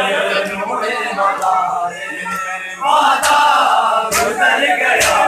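A crowd of men chanting a noha, a Shia mourning lament, loudly and together, swelling about three seconds in. Near the end, sharp slaps of hands on bare chests (matam) start to land about once a second.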